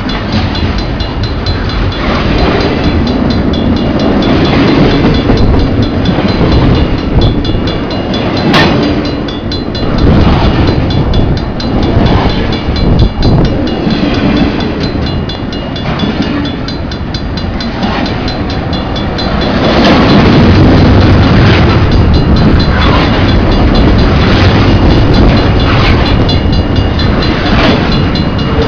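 CN train's cars rolling past at close range, the wheels clacking in a repeated rhythm over a steady rumble. It gets louder about two-thirds of the way through.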